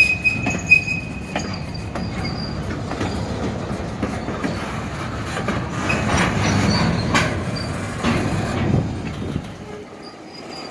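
Freight train cars rolling past at close range: steel wheels rumbling and clattering on the rails, with a high metallic squeal for the first second or so. The rumble eases off near the end.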